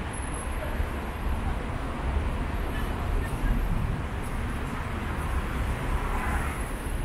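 City street ambience: car traffic passing along the road, with indistinct voices of passers-by.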